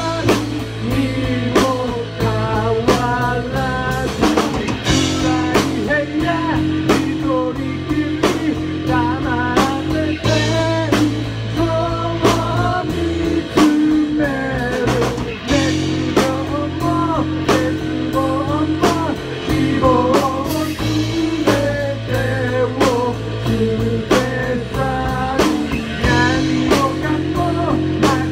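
Live rock band playing: electric guitar, bass guitar and drum kit, with a sung lead vocal over them.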